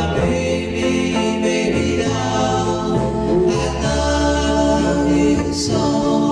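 Doo-wop record: a vocal group singing close harmony over a bass line.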